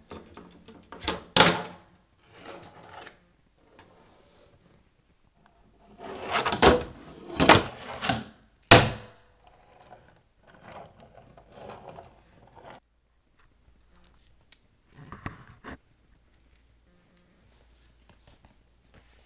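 Tech Deck fingerboard clacking against a wooden tabletop as tricks are done and landed. There are two loud clacks about a second in, three more between about six and nine seconds in, and another near fifteen seconds, with fainter scraping and rolling between them.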